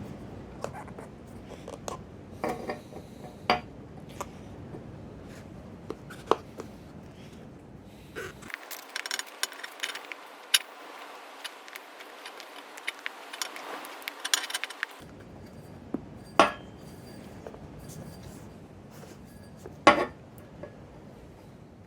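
Suspension strut parts being handled and fitted together: scattered sharp clicks and knocks of hard parts, with a stretch of rubbing and scraping in the middle.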